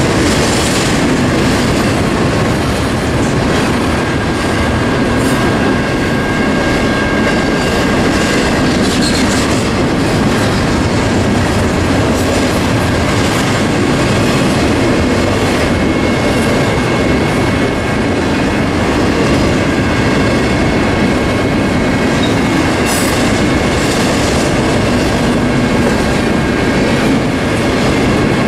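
Double-stack intermodal well cars rolling steadily past, wheels clicking over the rail joints. Under them, the crossing's General Signals Type 1 electronic bell rings at a very fast rate.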